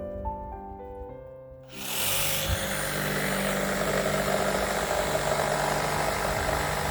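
Piano music, then, a little under two seconds in, a loud, steady machine noise starts and continues, like an engine or power tool running.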